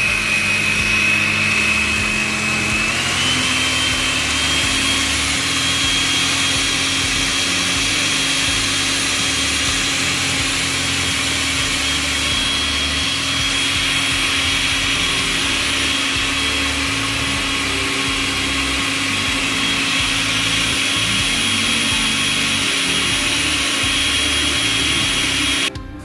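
Zephir countertop blender running at full speed on a thick mixture: a loud, steady motor whine that steps up slightly in pitch about three seconds in, then cuts off abruptly near the end.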